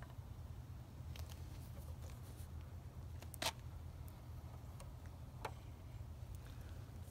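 Faint handling sounds from a plastic wood-glue squeeze bottle as a bead of glue is laid along a wooden rail: a few small clicks, the sharpest about halfway through and another near the end, over a low steady rumble.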